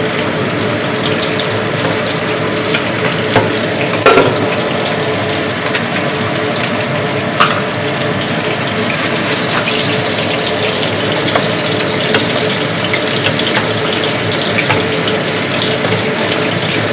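Prawns sizzling and bubbling in a little liquid in a frying pan, a steady hiss, with a few sharp knocks, the loudest about four seconds in.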